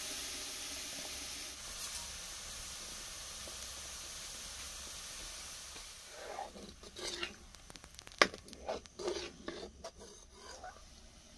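Hot oil sizzling in a metal kadai, the hiss slowly dying away over the first six seconds. Then a steel ladle stirs and scrapes in the pan and a hand mixes wet greens, with irregular clinks of metal on metal, the sharpest about eight seconds in.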